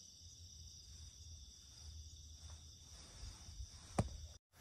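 Faint, steady chirring of night insects, with a low rumble underneath. A single sharp click about four seconds in, after which the sound cuts out for a moment.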